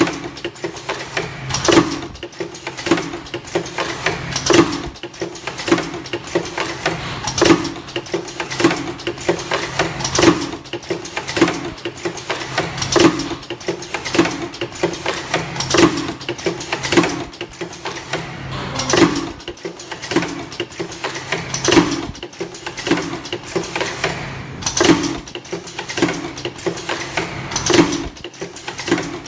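Semi-automatic ultrasonic mask earloop welding machine cycling, its pneumatic cylinders clacking about once a second over a steady machine hum.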